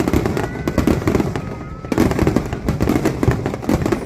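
Fireworks display: a dense run of bangs and crackles, many per second, dipping briefly just before two seconds in, then resuming with a sharp burst.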